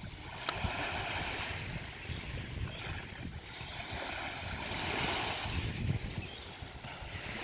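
Small waves washing in on a sandy beach, swelling and fading every second or two, with wind rumbling on the microphone.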